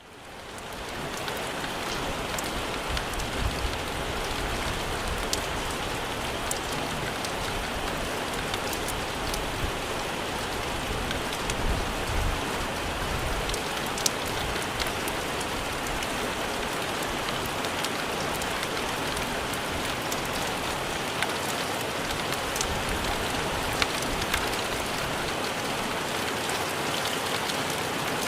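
Heavy rain falling onto the sea: a dense, steady hiss speckled with sharp drop taps, fading in over the first second. Strong wind adds occasional low rumbling gusts.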